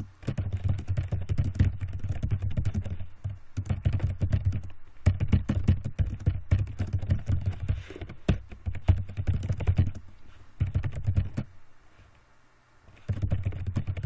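Typing on a computer keyboard: quick runs of keystrokes in bursts, with a pause of about a second and a half near the end before the typing starts again.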